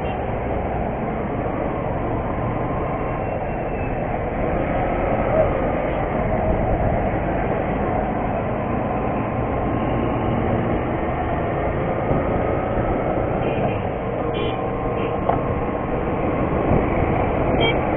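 Motorcycle riding at low speed through traffic: a steady rumble of engine and rushing air with no break.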